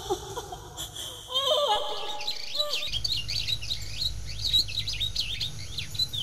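Many songbirds chirping in a busy chorus of short, high calls, starting about two seconds in, over a low steady rumble. In the first seconds, the tail of a woman's sung lament fades out.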